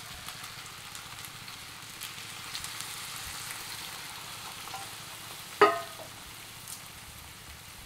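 Chicken pasta sizzling steadily in a hot pan as milk is poured in, with one sharp clink that rings briefly a little over five seconds in.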